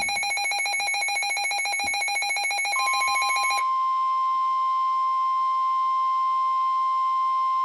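Weather-radio emergency alert: a rapidly pulsing electronic alert made of several tones, which stops about three and a half seconds in, and a single steady 1050 Hz warning tone that comes in just before it and holds on.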